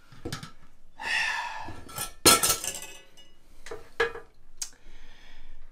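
Metal ceiling-fan mounting bracket being handled against the junction box, giving a few sharp clinks and knocks, the loudest a little past two seconds in, with a brief scrape about a second in.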